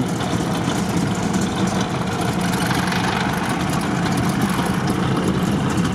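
Off-road vehicle's engine running steadily at low revs while it reverses slowly, heard from inside its cab.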